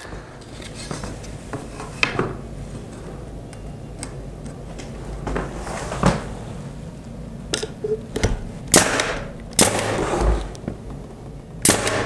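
Pneumatic finish nailer firing nails through walnut door trim: about six sharp single shots at uneven intervals, the loudest near the end.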